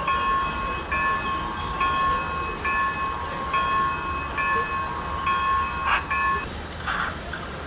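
Steam locomotive whistle sound for a 2-8-8-4 EM-1, a chord of several notes, blown in a run of blasts with short breaks and stopping about six and a half seconds in. A few short hissy puffs follow near the end.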